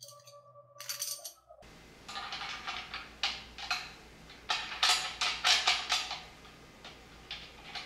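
Small metal parts clinking and clicking: bolts, nuts and aluminium extrusion pieces being handled and fitted together during frame assembly, a rapid irregular run of sharp clinks loudest in the middle. A short stretch of music cuts off about a second and a half in.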